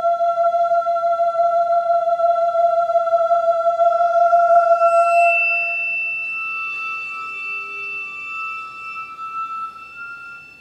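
Live contemporary chamber music: a single high note held steady for about five seconds, then quieter high tones lingering and fading out near the end.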